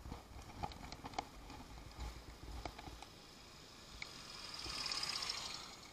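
A motor scooter approaches and passes close by. Its engine and tyre noise swell to a peak about five seconds in, then fade. Faint clicks come in the first few seconds.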